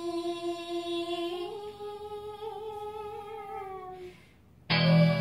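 Singing: one long held note that steps up a little in pitch partway through and wavers, sung as a show-segment jingle. After a short gap near the end, a louder, lower-pitched sung or musical sound begins.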